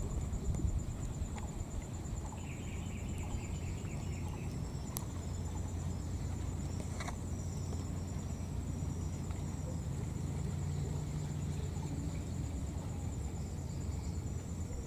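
Insects trilling steadily at a high pitch in rapid pulses over a low rumble, with a short run of chirps about two to three seconds in.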